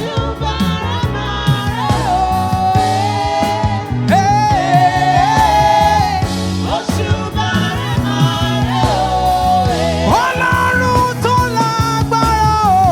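Gospel praise music: a lead voice sings a bending melody over a band with a steady bass and drum beat.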